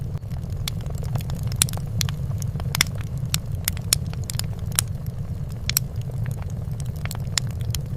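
Fire in a fireplace crackling: irregular sharp pops and snaps scattered over a steady low rumble of burning.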